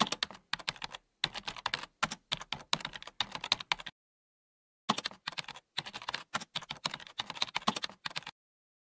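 Keyboard typing sound effect: rapid, uneven key clicks, with a pause of about a second midway.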